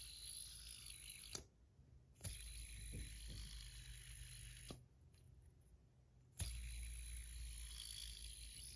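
Titanium fidget spinner's bearing whirring as it is spun by hand: a spin already running stops abruptly about a second and a half in, then the spinner is flicked with a click and spun twice more, each spin of about two and a half seconds ending in a sudden stop.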